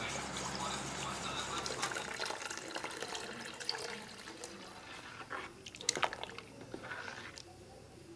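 Liquid being stirred in a steel bowl and then poured, with a steady low hum that stops about two seconds in. A few sharp clicks near six seconds are the loudest sounds.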